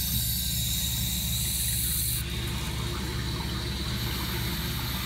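Toilet tank refilling through a newly fitted Fluidmaster fill valve as the water supply is turned back on: a steady hiss of water that eases a little about two seconds in, over a low rhythmic hum.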